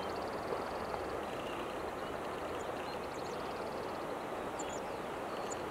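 River water running steadily, with birds calling faintly over it: a fast, high ticking trill twice and a few short high chirps.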